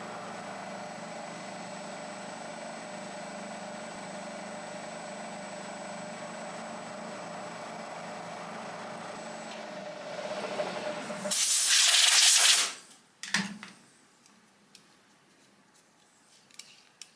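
Milling machine running steadily with an end mill in a black Delrin part, a steady hum with a faint, thin high tone. About eleven seconds in the machine sound stops and a loud hiss of compressed air, lasting about a second and a half, blows the chips off the vise. A single knock and a few light clicks follow.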